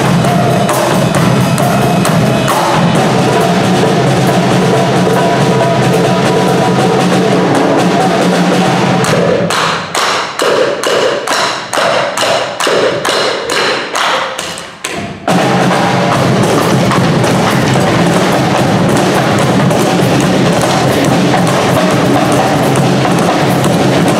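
Live percussion ensemble of hand drums (djembes and cajón) with a drum kit playing a groove together. About ten seconds in it drops to a sparse pattern of separate strokes, two or three a second, and the full ensemble comes back in together about five seconds later.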